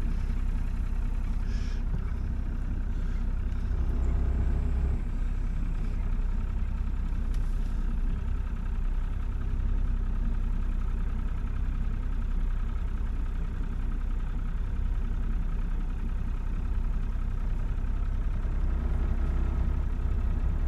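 Small boat's engine idling steadily, a little louder for about a second around four seconds in.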